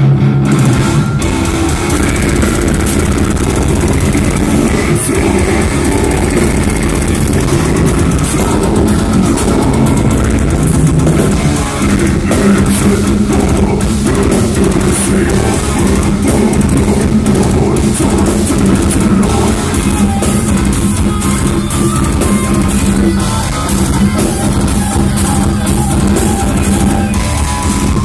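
Death metal band playing live at full volume: fast, dense drumming under distorted guitars and bass, recorded from within the crowd.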